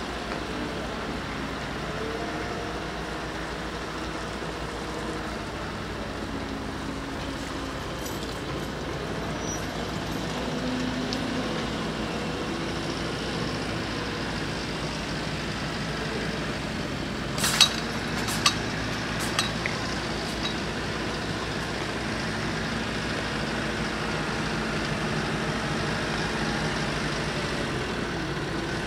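Steady road-vehicle engine and traffic noise. A few sharp clicks and knocks come a little past halfway.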